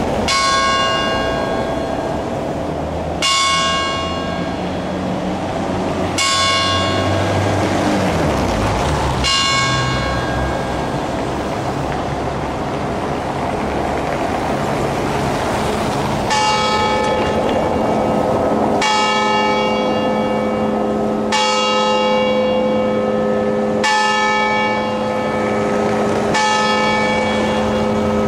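Cathedral clock bells striking the hour at midnight. One bell strikes four times, about three seconds apart. After a pause, a second, lower-pitched bell tolls a stroke every two and a half seconds, and each stroke rings on.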